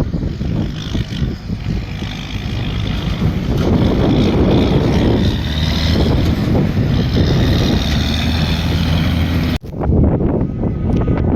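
Diesel engine of heavy farm machinery running steadily, with wind buffeting the microphone. The sound cuts out for an instant about nine and a half seconds in, then picks up again.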